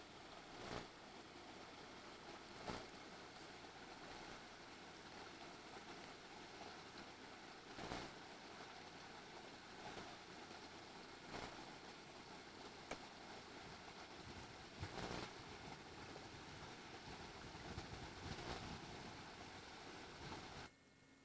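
Steady outdoor rushing noise with a few brief knocks scattered through it, cutting off suddenly near the end.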